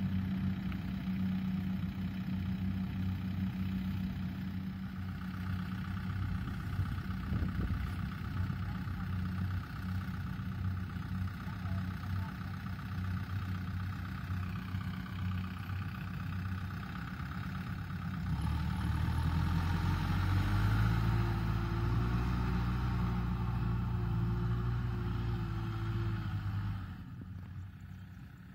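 Diesel farm machinery running: a rice combine harvester and then a Kubota tractor. The engine note is steady at first, grows louder and deeper about two-thirds of the way through, then drops away suddenly near the end.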